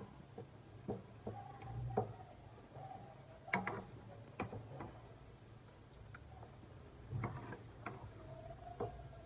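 Serving spoon knocking and scraping against a cooking pan and serving dish as korma is ladled out: scattered light clicks, with sharper knocks about three and a half and seven seconds in.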